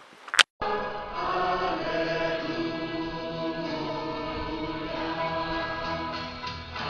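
Many voices singing a hymn together in long held notes. Two sharp clicks and a moment of silence come right at the start.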